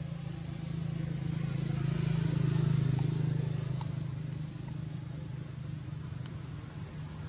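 Low steady hum of a motor vehicle's engine. It swells for a couple of seconds about two seconds in, then eases back, with a few faint clicks.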